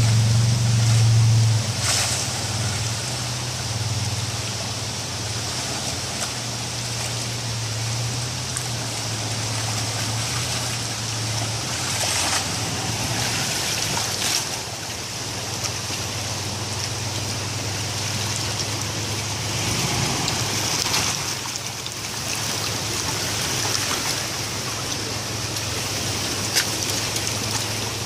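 Toyota 4Runner V8 engine running at low revs as the truck creeps through a creek, a steady low hum that fades about halfway through, with the stream's water flowing and sloshing around the tyres throughout.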